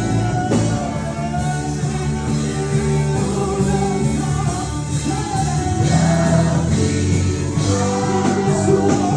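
Gospel music: singing over a full band with guitar and steady bass.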